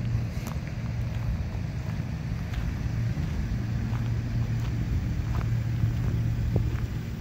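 Chevrolet Silverado 1500 pickup engine idling with a steady low hum. A few faint crunching footsteps on gravel come through now and then.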